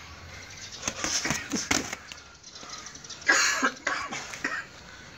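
Muay Thai sparring: gloved punches and a kick landing on a sparring partner's guard, each strike with a sharp, cough-like exhaled breath. The strikes come in a quick cluster about a second in and again a little past three seconds, the later one louder.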